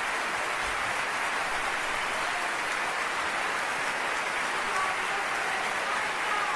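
Sustained applause from a large crowd, a steady dense clatter with faint voices in it.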